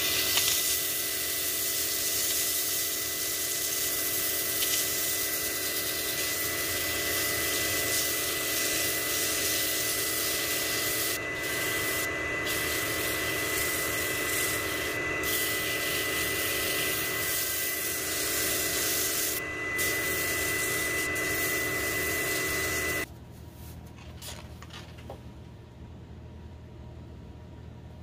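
Wood lathe running with a steady motor whine while sandpaper is held against the spinning wooden vase, making a steady hissing rasp that lets up briefly a few times. About 23 seconds in it cuts off abruptly to a much quieter background with scattered light clicks.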